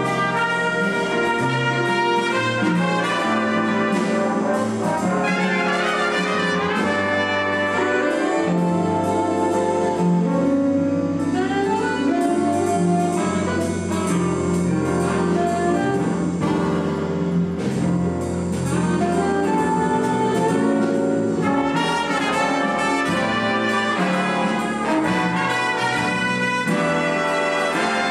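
Jazz big band playing live: trumpets, trombones and saxophones in full ensemble over bass and drums, with a steady cymbal beat.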